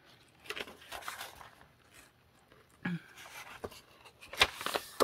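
Paper pages of a handmade journal rustling and being turned by hand, with soft scattered crackles and one sharper crackle about four seconds in.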